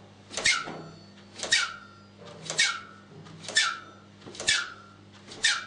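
Bicycle suspension fork on a Norco Nitro mountain bike being compressed about once a second, each stroke giving a whistle that falls in pitch, six in all. The rebound is set to slowest, yet the adjuster changes only this sound and not the rebound speed, which the owner takes for a fault in the fork.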